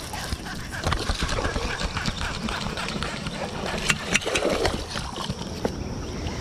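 A hooked largemouth bass being reeled in on a baitcasting reel: scattered clicks and knocks from the reel and rod, and the fish splashing at the surface.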